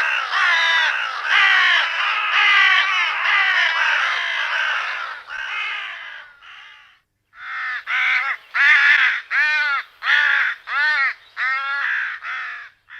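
Hooded crows cawing: a run of harsh, overlapping caws, then after a short break a series of about ten separate caws.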